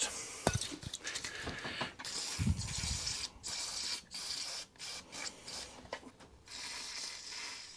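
WD-40 aerosol sprayed through its straw onto the bone-dry throttle linkages of a lawnmower engine, in a series of short hissing bursts. A dull bump comes about two and a half seconds in.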